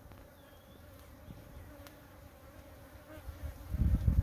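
Bees buzzing with a faint steady hum around a wild bees' nest in a baobab trunk that is being smoked for honey. Near the end a loud, uneven low rumble breaks in.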